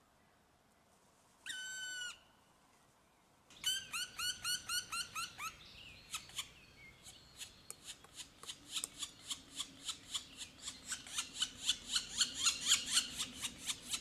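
Short high squeal about a second and a half in, then rhythmic high-pitched squeaking, about four squeaks a second, that grows louder; a low steady hum joins about eight seconds in.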